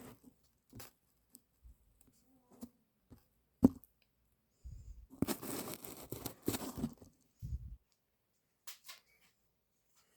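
Handling of a small revolver and its parts: scattered small clicks and knocks, one sharper click a few seconds in, then a few seconds of rustling and scraping, and two more clicks near the end.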